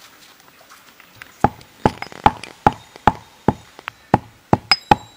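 Heavy pestle pounding whole spices in a stone mortar: about ten sharp, even knocks, roughly two and a half a second, starting about a second and a half in.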